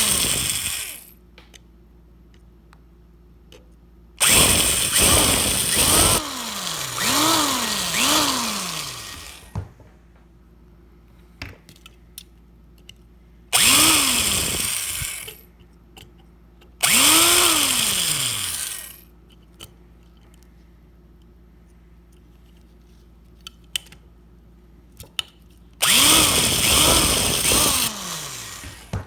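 Cordless power drill run in several short bursts while drilling out the rivet of a die-cast toy car's metal base; the motor whine rises and falls with each squeeze and release of the trigger, with brief pauses between bursts.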